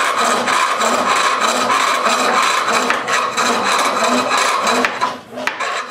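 Turning tool cutting wood on a foot-powered lathe: a steady rasping scrape that pulses evenly about three times a second, dipping briefly near the end.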